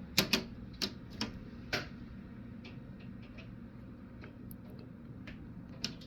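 Gusty wind outside heard from indoors through a screen door, a faint steady rush, with a series of sharp irregular clicks and taps, most of them in the first two seconds.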